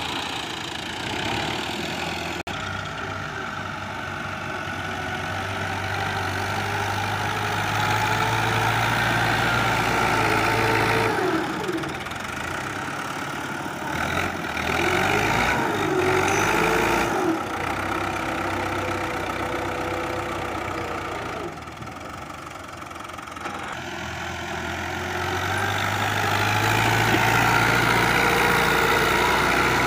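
Fiat 640 tractor's four-cylinder diesel engine running under load while pushing sand with a front blade. The engine swells louder about a third of the way in and again near the end, and eases off in between.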